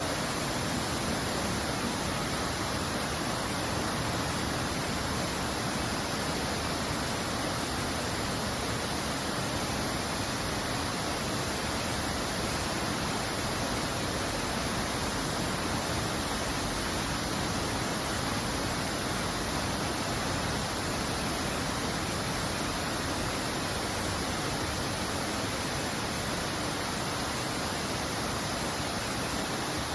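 Waterfall pouring, a steady, unbroken rush of falling water.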